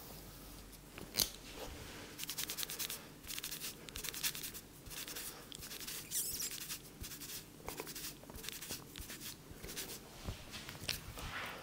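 Head massage: hands rubbing and scratching through hair and over the scalp, in quick runs of crisp clicks and rustles.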